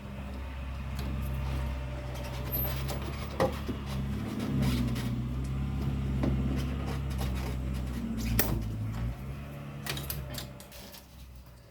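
Scattered sharp clicks and knocks of plastic parts being handled and unclipped under a car's hood, over a steady low hum.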